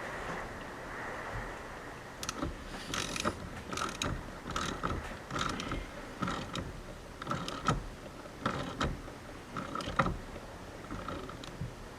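Hand ratchet clicking in short back-and-forth strokes, about two a second, as a 10 mm hex socket turns the steering wheel's center bolt down.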